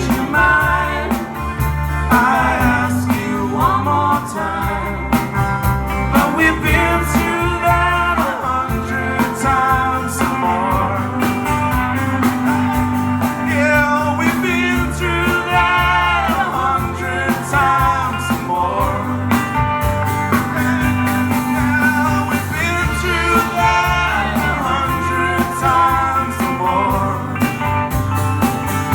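Live band playing a slow country-rock song: guitars and bass under a wavering lead melody.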